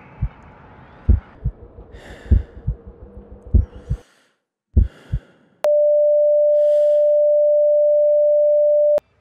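Heartbeat sound effect: pairs of deep thumps about a second apart, under short breathy puffs. About five and a half seconds in, a heart monitor's flatline tone begins, a single steady beep held for over three seconds that cuts off suddenly; it is the monitor's sign of a stopped heart.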